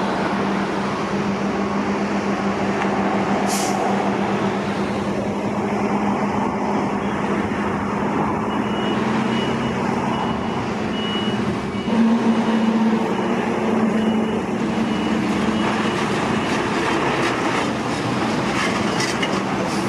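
Steady motor-vehicle engine and road noise, with a low hum that swells briefly about twelve seconds in.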